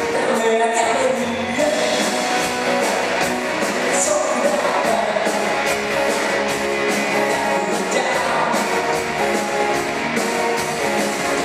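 Rock band playing live: electric guitars and drums, with a lead singer.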